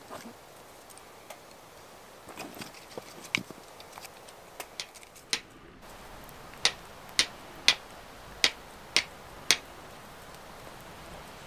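Flint and steel fire lighting: a C-shaped fire steel struck against a flint held with tinder on it, six sharp strikes about two a second in the second half, throwing sparks onto the tinder to catch an ember. Before that, scattered lighter clicks and knocks.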